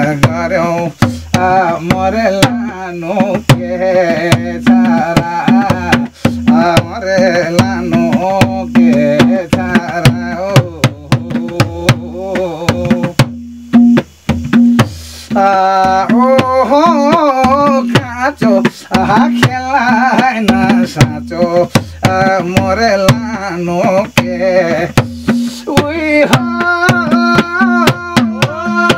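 A madal, the Nepali two-headed hand drum, is struck in a quick, steady rhythm, accompanying a man singing a jhyaure folk song. The singing breaks off briefly about halfway through.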